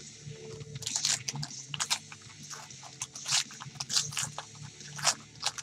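Foil wrapper of a trading-card pack crinkling and tearing as gloved hands peel it open, in a run of irregular sharp crackles.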